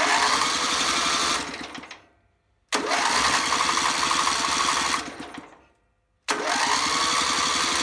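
Electric starter motor spinning a Briggs & Stratton 30-series V-twin over with its spark plugs out, in three bursts. Each burst opens with a rising whine as the starter spools up, runs steadily for one and a half to two seconds, then winds down. The third burst is still running near the end. The starter pinion is meshing cleanly with a newly modified ring gear on the flywheel, and the engine turns freely.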